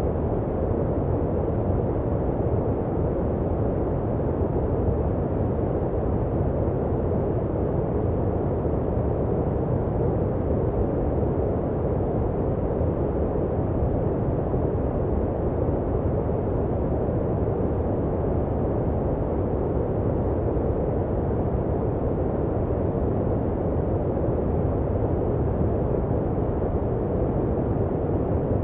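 Steady sleep-aid noise: an even, unbroken hiss, deep and muffled with little treble, closer to brown noise than bright white noise.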